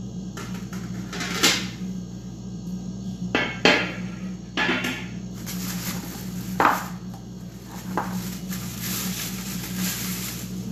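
Metal grill parts and drip trays clanking and knocking as they are lifted out of the box and set down on a tiled floor, about five knocks in all, with plastic wrapping crinkling in between. A steady low hum runs underneath.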